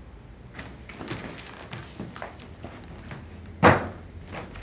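A cat scrambling on a wooden parquet floor and into a fabric pop-up play cube: scattered rustles of the fabric and light knocks, with one louder thump about three and a half seconds in.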